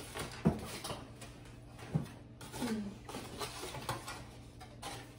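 A few light knocks and clicks of plates being handled and set down on a table, the sharpest about half a second in, with brief faint murmurs of voices.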